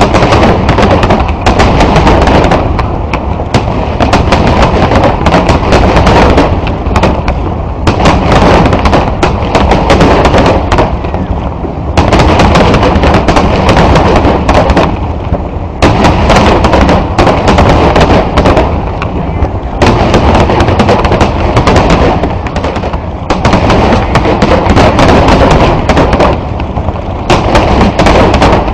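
Loud, dense barrage of aerial firework shells bursting, many cracks and booms overlapping almost without pause and swelling in waves every few seconds.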